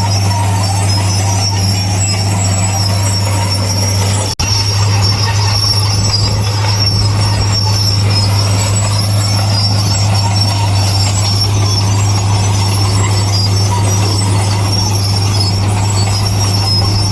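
Heavy diesel construction machinery running steadily under a high metallic squeal, with a momentary break about four seconds in.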